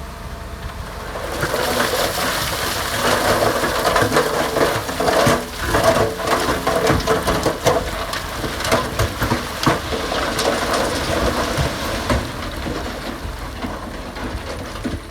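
A load of gravel sliding off a tipping dump truck's bed: a rushing crunch of many stones that swells about a second and a half in and fades near the end, over a diesel engine running.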